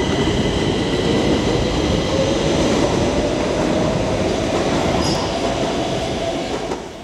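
Metro train running through an underground station: a dense rumble of wheels on rails with a steady high whine, fading out near the end.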